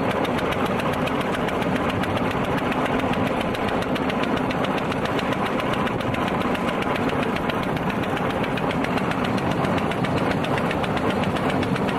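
Engine of a small narrow-gauge 'Kuli' rail motor trolley running steadily under way, with a fast, even clatter.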